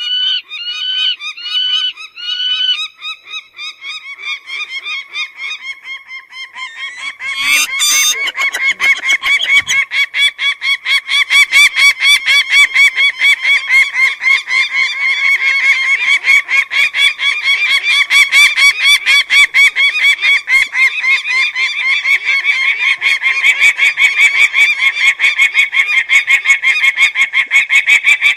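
Peregrine (shaheen) falcon calling: a few slower calls that rise and fall in pitch, about two a second, then, after a short knock about seven seconds in, a long, fast, unbroken run of repeated calls.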